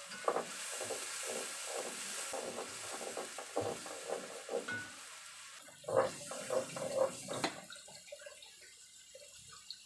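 Blended chilli paste sizzling in hot oil in a pan while a spatula stirs and scrapes it in short strokes. The sizzle dies down about six seconds in, around a few sharper knocks and clatters.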